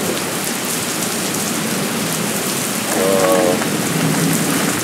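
Heavy thunderstorm rain pouring down in the wind, a loud, steady hiss of rain splashing on surfaces.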